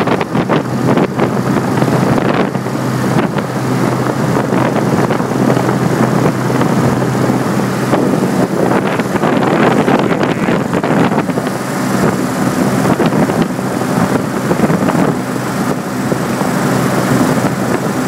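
Daikin heat pump outdoor unit running steadily: fan noise with a low hum, with some wind or handling noise on the microphone.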